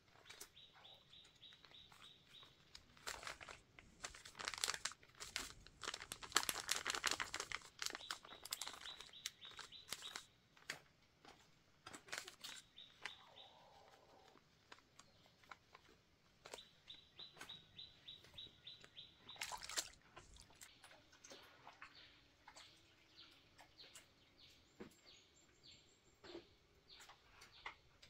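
A plastic packet crinkling and rustling as powder is shaken from it into a bucket, loudest in the middle stretch. A high, rapid chirping trill repeats several times over the handling noise.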